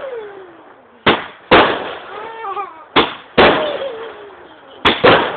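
Consumer fireworks going off: sharp, loud bangs in three quick pairs about two seconds apart, each bang ringing out briefly.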